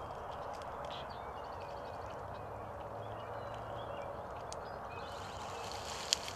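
Early-morning field ambience: small birds chirp over a steady outdoor hiss, with one sharp click about six seconds in.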